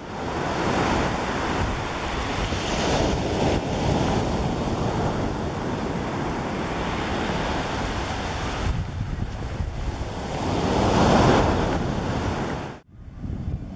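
Rough surf breaking on a pebble beach, a steady wash of waves with a louder swell about eleven seconds in, and wind buffeting the microphone. The sound cuts off abruptly near the end, then returns quieter.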